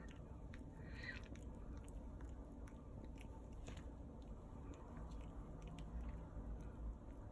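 Poodle puppy chewing, with faint irregular crunching clicks, and a short high squeak about a second in.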